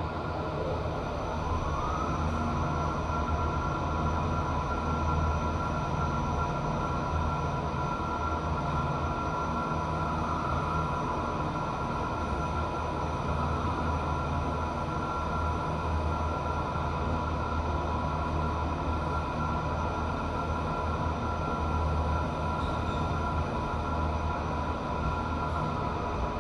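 Elevator hoist machine running through a ride: a low rumble with a motor whine that rises over the first two seconds as the car speeds up, then holds steady at travel speed.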